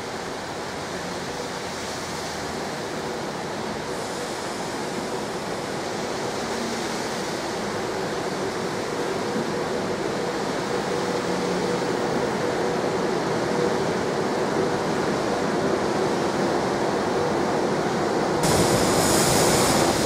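Class 390 Pendolino electric train slowing into the platform, its running noise and a steady electric hum growing gradually louder over a constant hiss. A higher whine joins near the end.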